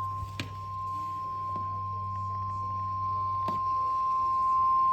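NOAA Weather Radio warning alarm tone: one steady, high single tone of about 1050 Hz, the signal that a new warning is about to be read. It plays over a low radio hum, with two faint clicks about half a second and three and a half seconds in.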